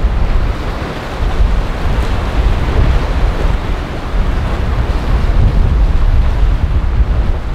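Wind buffeting the microphone in a steady, heavy rumble, over the rushing wash of waves and water in the inlet.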